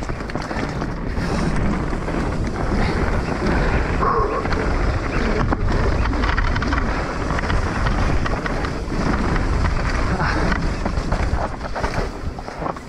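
Wind buffeting a helmet-mounted action camera's microphone, with mountain bike tyres rolling over dirt and loose stones, and small knocks and rattles from the bike over the bumps of a downhill singletrack.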